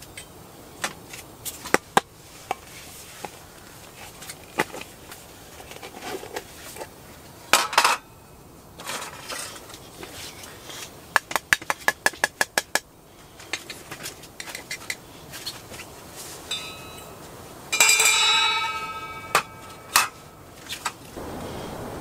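A metal spoon clinking and knocking against stainless steel tumblers and a coffee canister: scattered taps, a quick run of about a dozen clicks a little past halfway, and a louder ringing clang near the end.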